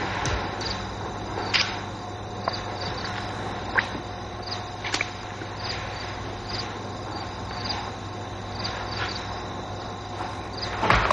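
Crickets chirping in a steady rhythm, about two short high chirps a second, over a low steady hum, with a few faint clicks and a louder thump near the end.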